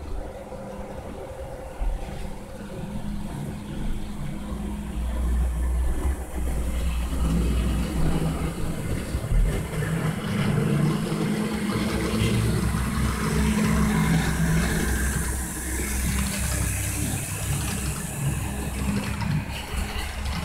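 HO scale model diesel locomotives leading an intermodal train, their engine sound with a steady low hum, getting louder as they approach. In the latter part, a high rolling hiss joins in from the container cars passing on the track.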